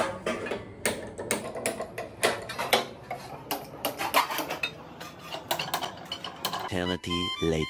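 Hand-held spark gas lighter clicking again and again at a gas stove burner, a few sharp, irregular clicks each second as someone tries to light the burner.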